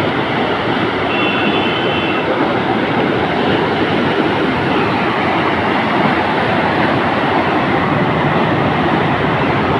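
Muddy floodwater rushing fast down a rain-swollen channel: a loud, steady torrent. A brief high tone sounds about a second in.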